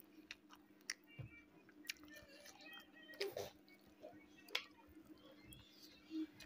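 Close-up eating sounds: chewing with scattered small wet smacks and clicks, and soft squishing as rice and smoked pork with axone are mixed by hand on a plate. The loudest sound comes about three seconds in.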